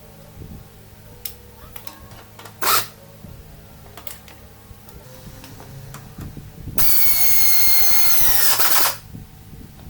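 A power tool gives a brief burst, then runs steadily for about two seconds near the end, its pitch dropping as it stops.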